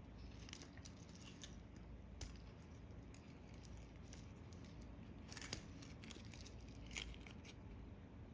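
Faint metallic clicks and clinks of a stainless steel watch bracelet being handled as its push-button fold-over clasp is pressed open; the sharpest clicks come about two, five and a half and seven seconds in.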